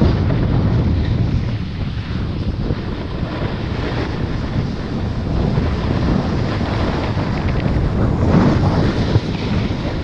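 Wind buffeting the microphone while riding a snowboard downhill, with the hiss of the board sliding over the snow. It is a steady rushing noise that swells a little about eight seconds in.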